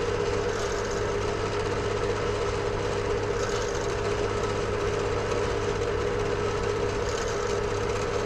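Pillar drill motor running with a steady hum while a miniature bit is fed slowly into a bone guitar nut.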